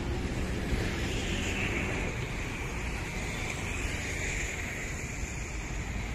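Road traffic: vehicles moving slowly through a highway toll plaza, a steady rumble of engines and tyres. A passing vehicle swells and fades about a second in.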